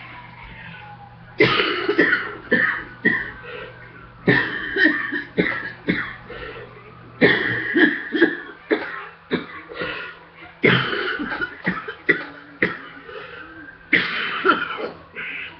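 A person coughing hard in repeated fits after treadmill running: about five bouts, each a rapid string of several coughs, with short pauses between them.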